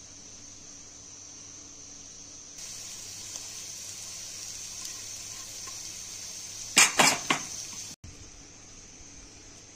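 Wooden cutting board knocking three or four times, sharply, against the rim of a ceramic-coated frying pan as chopped herbs are shaken off into it, over a soft, even sizzle from the onions frying in the pan.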